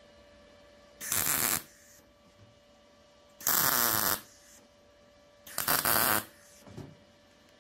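MIG welding arc striking three short tack welds on thin-wall mild steel square tubing, each a crackling burst of about half a second, a second or two apart, with a faint brief fourth near the end.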